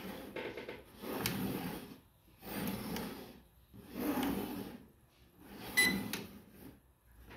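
Small folding camera drone being turned round by hand on a wooden tabletop for compass calibration: about five rubbing, scraping handling strokes, each about a second long. A short high beep about six seconds in signals that the horizontal calibration is done.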